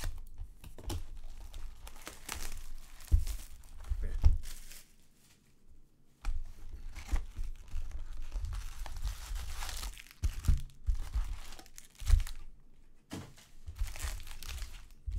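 Cardboard hobby box of baseball cards being torn open by hand, then the foil-wrapped packs crinkling as they are pulled out and stacked, with a few sharp knocks against the table.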